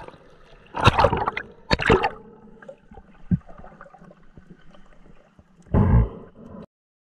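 Water splashing against a diver's camera at the sea surface, twice in quick succession, then the muffled sound of being underwater with faint scattered clicks, and one more short splash-like burst near the end before the sound cuts off.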